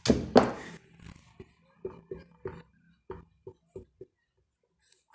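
Two sharp knocks, then a string of short, soft taps, about two or three a second, with quiet between them.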